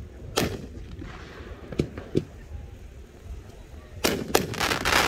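A Psycho Circus 500-gram firework cake with 2-inch tubes firing. A sharp bang comes less than half a second in and two smaller pops near the middle. From about four seconds in, a rapid run of loud bangs follows.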